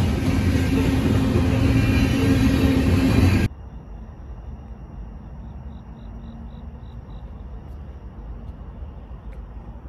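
Freight train of covered hopper cars rolling past, with loud steady wheel-on-rail noise and a low hum. About three and a half seconds in, the sound cuts off suddenly to a much quieter low rumble.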